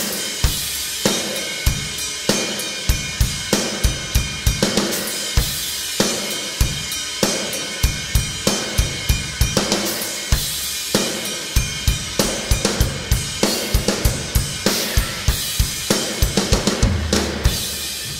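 Isolated rock drum-kit track playing a steady beat: kick and snare strikes under a continuous wash of hi-hat and cymbals. A low, sustained rumble comes in near the end.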